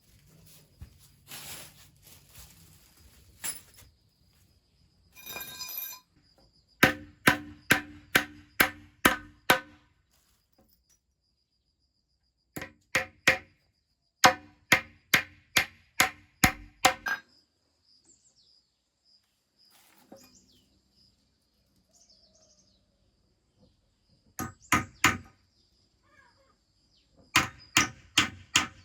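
A hammer driving nails into wood: runs of sharp, regular blows at about two a second, with pauses between the runs.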